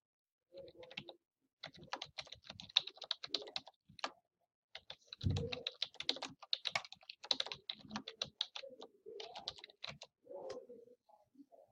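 Typing on a computer keyboard: quick runs of key clicks, broken by a couple of short pauses.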